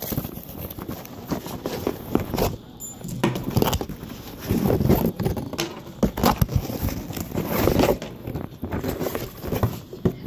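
Handling noise from a cardboard product box being moved about on a wooden table: a run of irregular rustles, scuffs and knocks.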